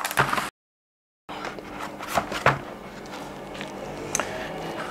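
Handling noise: a few light clicks and knocks as diagnostic-tool adapters and parts are moved about in a hard plastic carrying case, with a steady low room hum. About half a second in, the sound drops out completely for under a second.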